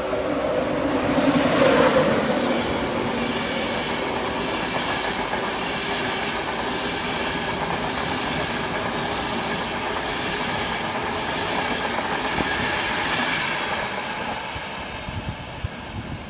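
Class 91 electric locomotive hauling an InterCity 225 train through at speed. The locomotive passes loudest about a second or two in, then the coaches' wheels run by in a steady rhythmic clatter over the rail joints, fading near the end as the tail of the train goes by.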